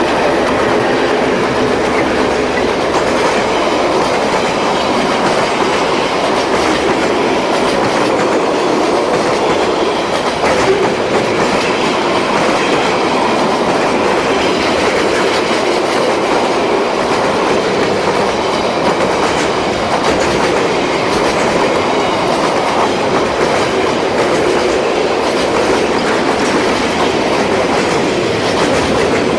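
A train rolling past, its wagons' wheels clicking steadily over the rail joints.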